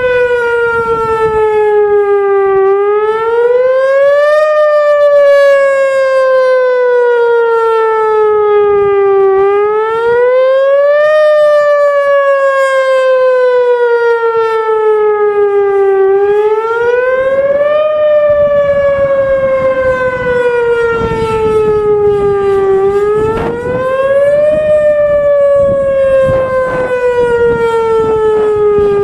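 Whelen Vortex R4 rotating electronic warning siren sounding a wail for a routine test. The pitch climbs quickly, then slides slowly down, repeating about every six to seven seconds.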